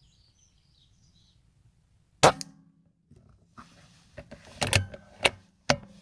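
A single sharp rifle shot with a brief ring about two seconds in, followed in the last two seconds by a quick run of further sharp clicks and knocks.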